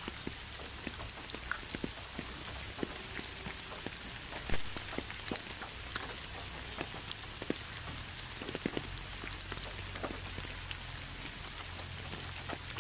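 Steady rain with many individual drops tapping close by, one louder drop about four and a half seconds in, over a low rumble.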